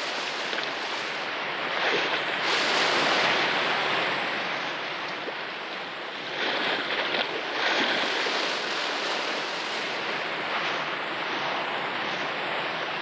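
Sea waves washing on a shore in a continuous rush of water, swelling louder about two seconds in and again after about six seconds as waves break.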